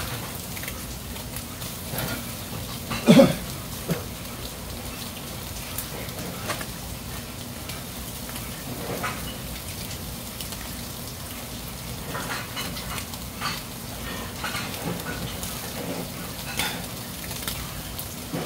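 Freshwater eel fillets sizzling on a wire grill over hot charcoal: a steady hiss with scattered crackles and pops, and one brief louder noise about three seconds in.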